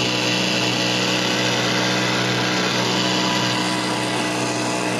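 Small outboard motor on an inflatable dinghy running steadily under way, its engine note holding a constant pitch.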